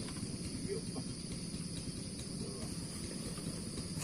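Insects trilling in a continuous, steady high-pitched drone over a low, even background noise.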